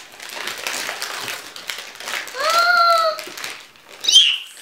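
Wrapping paper rustling and crackling as presents are unwrapped, with a child's high-pitched drawn-out cry of excitement lasting about a second, starting a little past halfway, and a short, very high squeal near the end.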